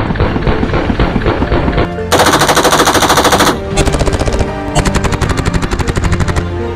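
Full-auto bursts from a short-barreled 5.56 mm AR-15 fitted with a 3D-printed Inconel muzzle brake, firing at about 700 rounds a minute. Three bursts start about two seconds in, the first and loudest lasting about a second and a half, over background music.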